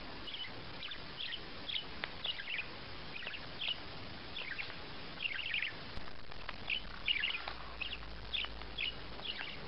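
Small bird chirping: a long run of short, high chirps, about two a second, over a steady background hiss.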